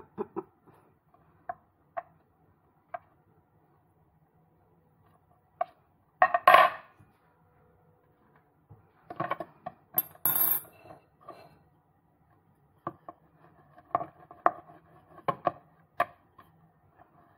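Scattered taps and knocks of hands and a metal fork on a round wooden board while dough is handled, with a louder clatter about six seconds in, another about ten seconds in, and a quicker run of taps near the end.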